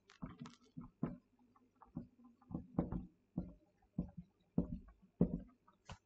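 Marker writing on a whiteboard: a run of short, uneven strokes and taps as words are written out.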